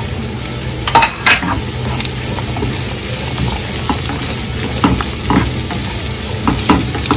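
Sliced carrots and bell pepper sizzling in hot oil in a non-stick frying pan as they are sautéed. A spatula scrapes and taps against the pan several times as they are stirred.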